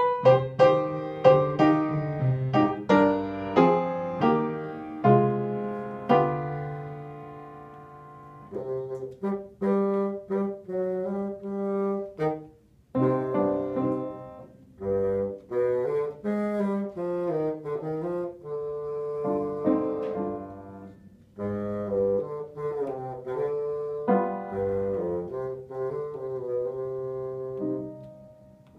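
Bassoon solo with piano accompaniment. The piano plays alone for about the first eight seconds, then the bassoon comes in with phrases of held notes, some of them wavering, over the piano.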